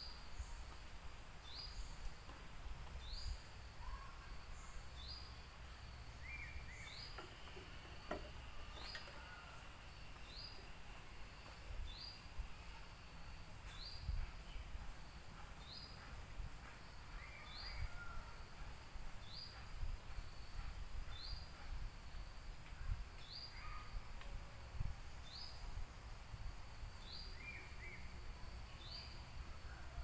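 Tropical woodland ambience: a short, high call repeats steadily about every second and a half, with scattered bird chirps now and then over a low rumble.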